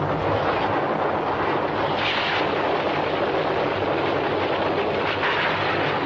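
A loud, steady roaring noise, with brief hissing surges about two seconds in and again near five seconds.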